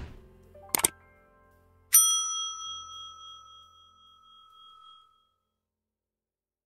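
Sound effects of a subscribe-button animation. A quick double mouse click comes about a second in. Near two seconds a bright bell ding strikes and rings on, fading out over about three seconds.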